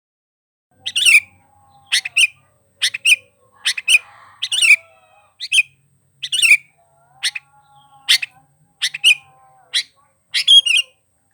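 Sooty-headed bulbul (kutilang) calling loudly and repeatedly in short, sharp notes, one or two a second, starting about a second in.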